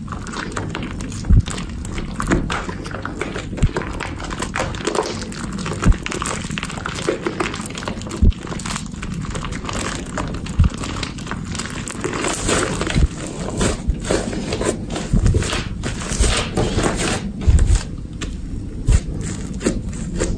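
Slime being kneaded and squeezed with shaving foam mixed in: wet squishing with crackling foam bubbles and occasional soft thuds as it is pressed down.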